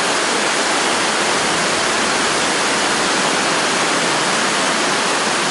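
Heavy downpour: a steady, dense hiss of rain pouring down, unbroken and even throughout.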